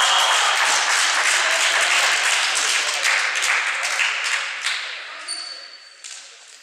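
Referee's whistle ending the rally, then players and spectators clapping and cheering in a sports hall, fading out over about five seconds; a second short whistle near the end.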